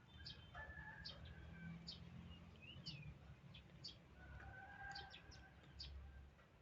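Faint animal calls: short high-pitched chirps repeating about once a second, with two longer held calls, one about half a second in and one about four seconds in.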